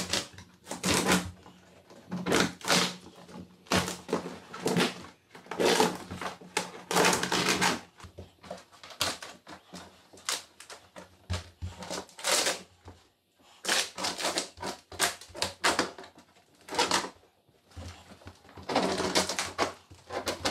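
Sheet linoleum being ripped up from a hardwood floor it was glued to: a run of irregular tearing rasps, roughly one a second, as the vinyl and its backing pull apart and come away in strips.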